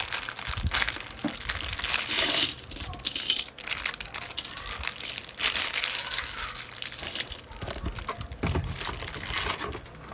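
Plastic bag of small plastic building bricks crinkling as it is opened, with the loose pieces clicking and clattering out onto a wooden floor.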